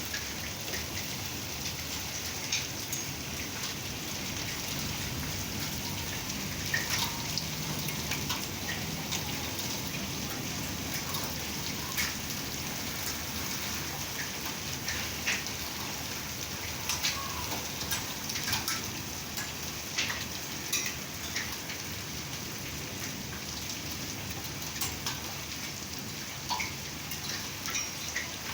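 Heavy rain falling steadily, with the hiss of the downpour and many separate drops striking a surface close by at irregular moments.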